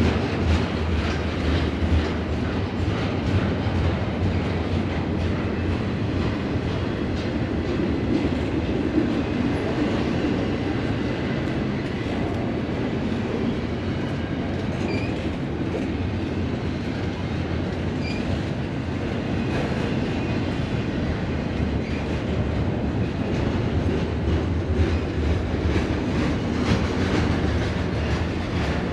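Double-stack intermodal freight train's container well cars rolling past: steel wheels running over the rails in a steady rumble with a clickety-clack of wheels crossing rail joints.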